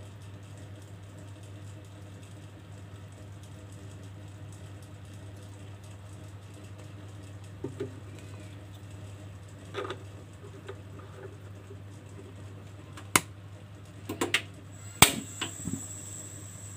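Sharp clicks of a portable gas stove's control knob being turned to light the burner, several in quick succession near the end, over a steady low hum. A few soft knocks come before them.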